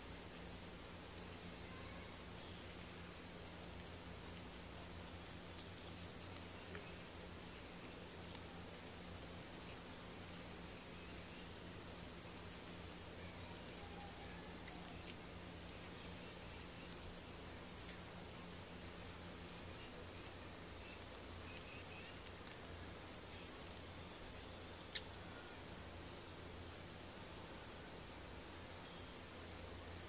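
House finch nestlings begging with rapid high-pitched chirps, about three or four a second, while being fed by the adult male. The chirping is loud for the first half and tapers off to a few faint peeps in the second half.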